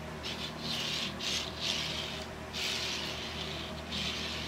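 Packaging rubbing and rustling in a run of short, irregular scraping strokes as a 1:64 diecast car is worked out of its box.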